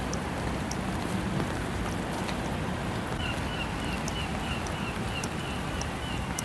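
Steady rain with wind buffeting the microphone, and scattered sharp ticks of raindrops. From about three seconds in, a bird repeats a short high call about three times a second.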